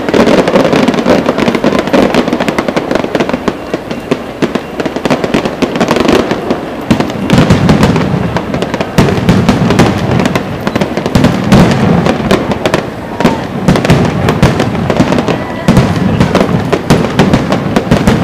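Aerial fireworks display: a dense, unbroken string of shell bursts, bangs and crackling, many overlapping with no quiet gaps.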